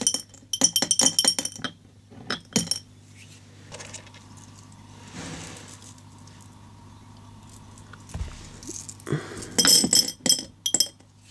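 Small glass beads clinking as they are handled, in two spells of quick clicks: one at the start and one about nine seconds in, with a quiet stretch between.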